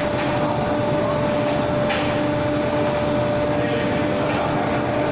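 Steady industrial machinery noise with a constant high whine over it, typical of furnace fans and plant equipment running. A faint tick comes about two seconds in.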